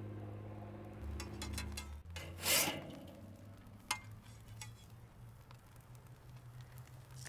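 Metal spatula scraping across a charcoal kettle grill's grate as grilled food is lifted off. There is one short scrape about two and a half seconds in and a sharp click about a second later, over a low steady hum.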